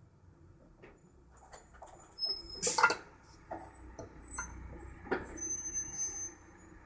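Scattered small clicks and knocks of tools and electronic components being handled at a soldering bench, with one louder knock about three seconds in.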